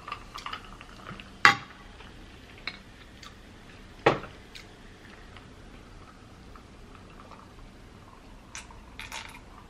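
Glass bottle and glassware knocking and clinking on a table: two sharp knocks, about a second and a half and about four seconds in, with fainter clinks of glass and ice between.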